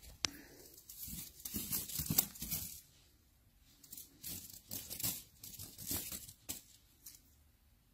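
Faint scratchy rustling in short, irregular strokes: cats' claws scraping and catching on wood and a sheepskin fur as they clamber and play, in two spells with a short gap about three seconds in.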